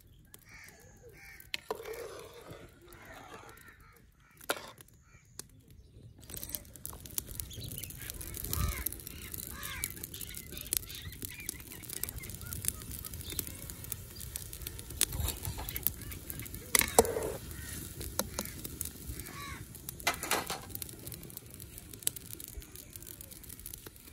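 Open wood fire crackling under a pot of water heating toward the boil: a steady hiss full of small crackles that starts about six seconds in. Birds call now and then.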